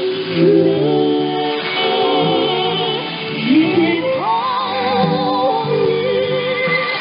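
A female vocal trio sings with instrumental accompaniment, the voices held on long notes with vibrato. It is received over shortwave radio, so the sound is narrow and dull, with nothing above about 5 kHz.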